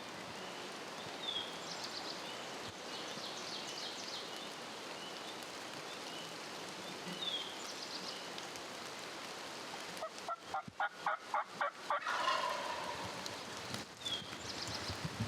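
Wild turkey gobbler gobbling: a fast, rattling run of notes about ten seconds in. A few short, high bird chirps come earlier.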